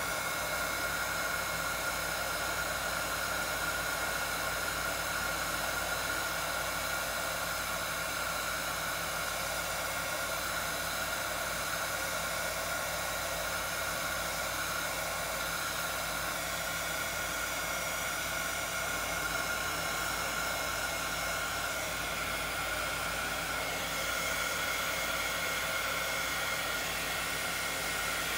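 Hand-held hot-air blower running steadily: an even rush of air with a constant motor whine.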